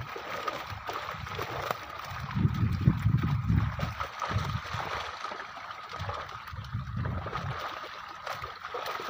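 Water splashing and churning as a seine net crowded with carp (catla and grass carp) is drawn in, the fish thrashing in the shallows. There are bursts of low rumble about two to four seconds in and again near seven seconds.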